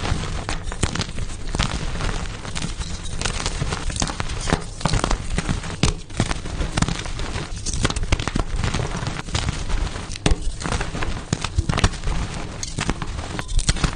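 Pasted gym chalk being crushed and crumbled: a dense, irregular run of crunches and crackles without pause.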